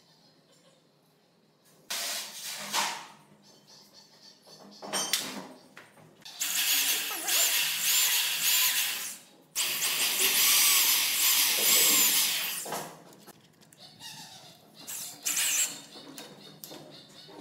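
Corded electric drill running in two long bursts of several seconds each, boring into the end of a wooden handrail. A few short knocks between, from the wood being handled.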